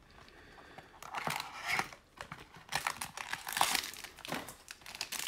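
Foil wrapper of a 2020 Bowman Sterling trading card pack crinkling and tearing as it is opened by hand, in irregular crackles starting about a second in.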